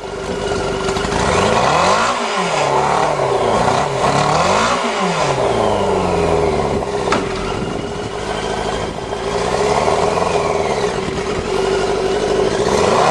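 Yamaha 650 motorcycle engine in a custom dune buggy revving up and down in several swells, its pitch rising and falling, with a steady whine underneath.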